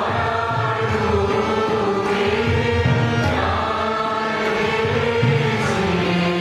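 A mixed chorus of men and women singing a song together, accompanied by a harmonium and tabla.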